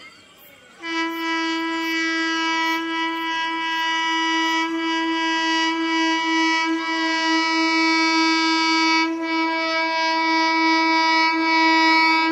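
Electric multiple unit (EMU) local train's horn sounding one long, steady blast of about eleven seconds, a single high note starting about a second in.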